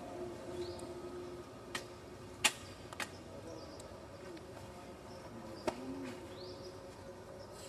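A few sharp clicks or taps over a faint steady background, the second the loudest, with a couple of short high chirps in between.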